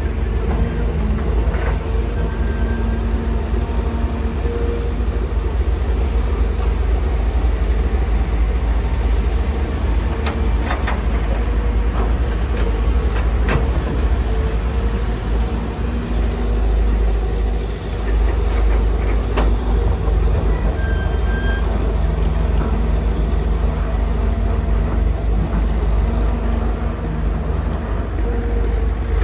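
Heavy diesel engines of a Kobelco SK250 excavator and Howo dump trucks running steadily under load, a deep, constant rumble. A few sharp knocks come through partway along, the loudest near the middle.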